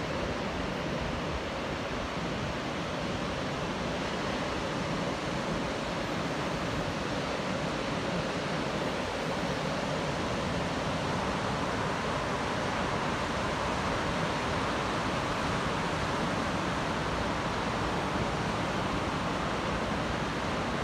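Ocean surf breaking on a sandy beach, a steady, even wash of noise with no distinct crashes.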